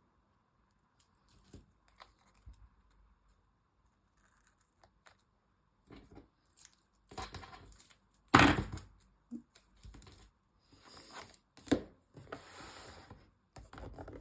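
Journal paper and washi tape being handled: scattered small clicks and rustles, then louder bursts of rustling and tearing in the second half, the loudest a little over eight seconds in.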